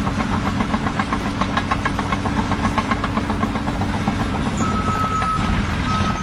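A heavy engine running steadily, with a fast, even clatter of ticks over it. A high steady beep sounds twice near the end.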